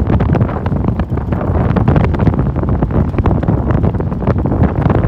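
Heavy wind buffeting the microphone over the running noise of a vehicle driving a country road, a dense low rumble scattered with many small irregular ticks.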